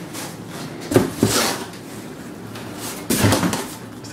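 Large cardboard boxes being handled: two knocks about a second in, then cardboard scraping, and another bout of knocking and scraping near the end.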